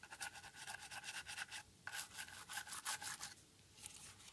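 Toothbrush bristles scrubbing the inside of an iPhone 5 housing that is wet with isopropyl alcohol, in quick short strokes. Two runs of strokes with a short pause between them, dying away near the end.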